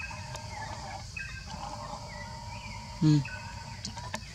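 Outdoor ambience with birds chirping, and one short, loud low-pitched call about three seconds in.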